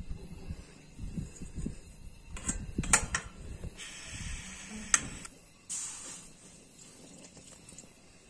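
Portable butane canister stove being worked at its knob: a few sharp clicks, the loudest about three seconds in and near five seconds, with a gas hiss between about four and six seconds in. Wind rumbles on the microphone during the first few seconds.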